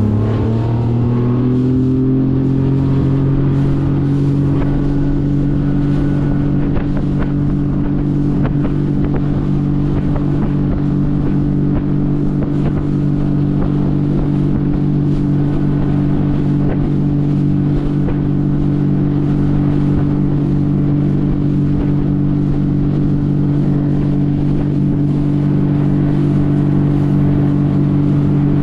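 The outboard motor of a Highfield Sport 390 inflatable boat accelerates, its pitch climbing over the first couple of seconds as the boat gets up to speed. It then holds a steady drone at cruising speed.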